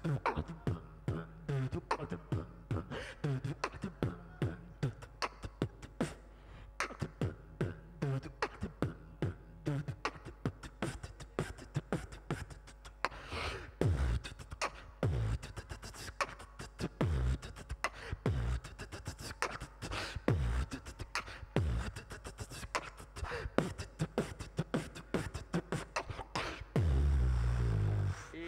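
Solo beatboxing into a microphone over a PA: a fast run of sharp clicks and snare-like hits, joined from about halfway by deep falling bass drops, and ending on a loud, held low bass tone.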